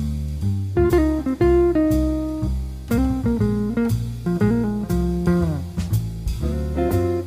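Music: an electric or acoustic guitar playing a bluesy line with bent, sliding notes over a low bass.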